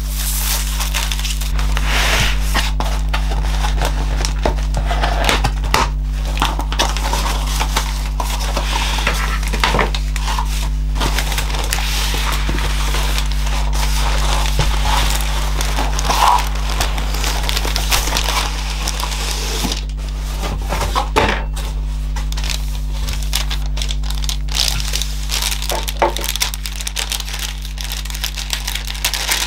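Tissue paper and clear plastic packaging crinkling and rustling as parcels are handled and wrapped, with scattered small clicks, over background music.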